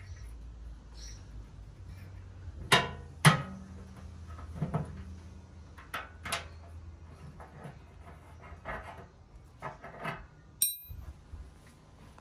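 Scattered metal clicks and knocks as small nuts and fittings are worked loose by hand from a Venco pottery wheel's metal basin, with two louder knocks about three seconds in and a short metallic ping near the end. A low steady hum runs underneath.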